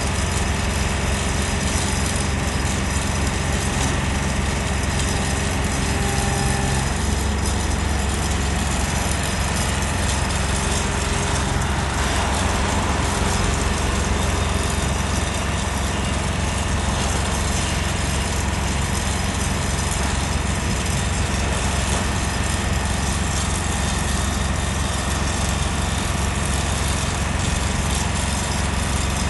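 Diesel engine of a Haulotte H21TX 4x4 boom lift running steadily while the raised telescopic boom is moved. There is a slight change in its tone about seven seconds in.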